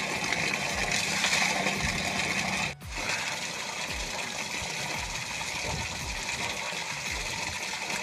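Water gushing from the open end of an irrigation pipe and splashing steadily into a flooded paddy, briefly cutting out about three seconds in.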